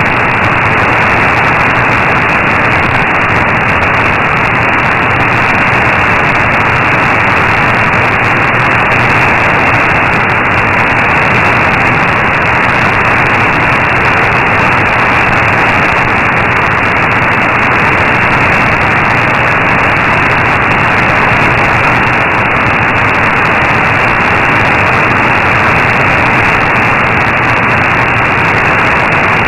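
Steady, muffled shortwave static from an AM receiver tuned to 15476 kHz, with no programme audible. The weak signal (S-meter near S1) leaves only band noise.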